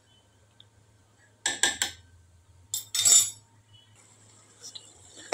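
Steel spoon clinking against a stainless steel cooking pot. Three quick clinks come about a second and a half in, then a longer clatter about three seconds in.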